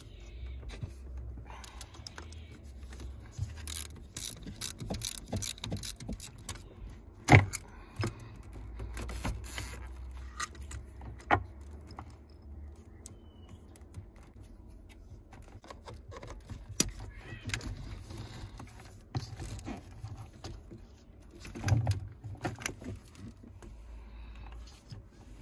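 Hands working on a two-stroke engine top end: scattered clicks, taps and light metallic and plastic rattles as wiring connectors and parts around the injector rail and spark plug hole are handled. One sharp click stands out about seven seconds in, and another comes near the end.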